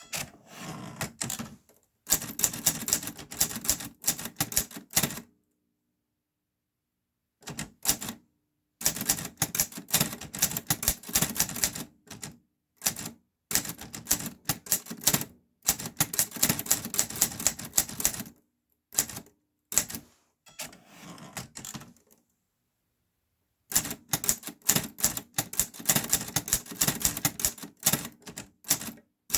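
Clover New Star 10S two-set (dubeolsik) Hangul typewriter being typed on: quick runs of key strikes in bursts of a few seconds, broken by short pauses and a couple of silent gaps of a second or two.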